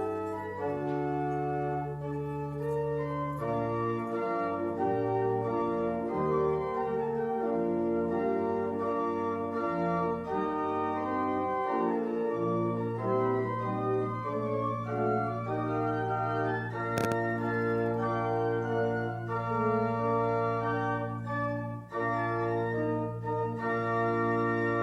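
Organ music, the postlude after the benediction: full held chords that change every second or two, with a long sustained bass note under them in the second half.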